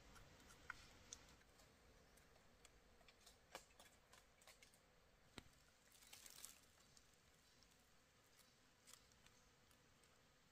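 Near silence, with a few faint scattered clicks and a brief soft noise about six seconds in.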